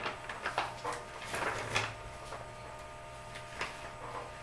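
Papers being handled and shuffled at a desk: a cluster of soft rustles and light clicks in the first two seconds and another about three and a half seconds in, over a steady low electrical hum.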